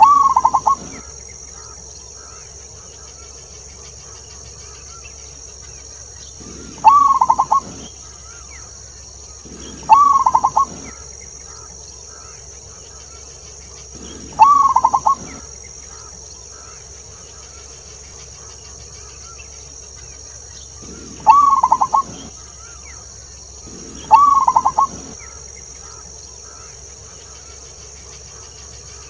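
Zebra dove (perkutut) cooing: six short phrases of about a second each, spaced a few seconds apart. Each opens on a higher note and breaks into a quick stutter of lower coos, over a steady high hiss.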